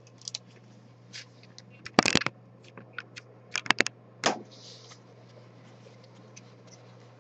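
Scattered sharp clicks and scrapes of a scraper blade prying 3D-printed plastic parts off a perforated printer build plate. The loudest cluster comes about two seconds in, and the clicks stop about five seconds in, leaving a faint steady low hum.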